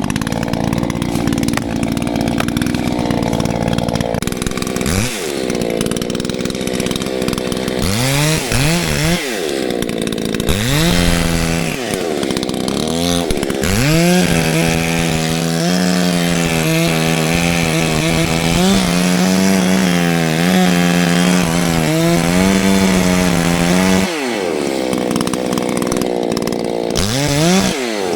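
Newly modified Echo CS-620PW two-stroke chainsaw revving up and down several times, then held at full throttle for about ten seconds in a steady cut into a dead tree trunk. It drops back off the throttle and revs once more near the end.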